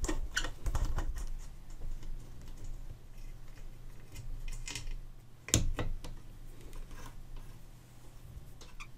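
Small metallic clicks and scrapes of a socket and fingers working the brass nuts that hold a cast-iron phonograph motor to its mounting plate, with one sharper click about five and a half seconds in.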